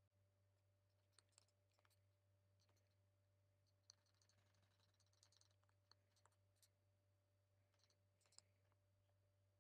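Near silence: faint room tone with a steady low hum and a scattering of faint short clicks.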